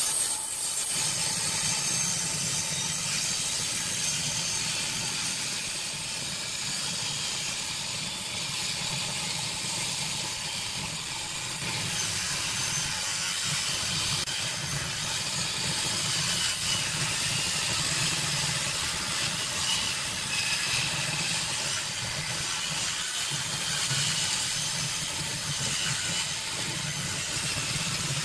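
Table saw running steadily, its circular blade cutting lengthwise along a thick wooden board: a steady motor hum under the hiss of the cut.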